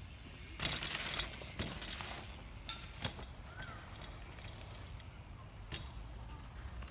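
BMX bike riding over dirt jumps: tyres rushing on packed dirt, with a few sharp knocks and rattles from the bike as it lands and rolls on.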